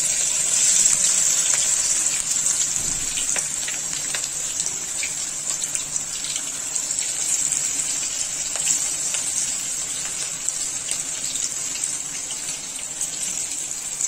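Pakoda batter of banana flower and green gram deep-frying in hot oil in a kadai: a steady, lively sizzle with scattered small crackles, easing slowly as the pieces cook.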